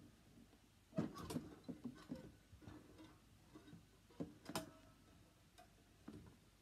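Faint clicks and taps of plastic wrestling action figures being handled and moved on a toy wrestling ring, with the sharpest ticks about a second in and again around four and a half seconds.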